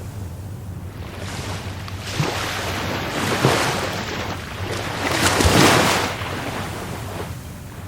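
Rough Caribbean Sea surf: a wave builds, breaks most loudly about five to six seconds in, then washes out and fades. A steady low rumble runs underneath.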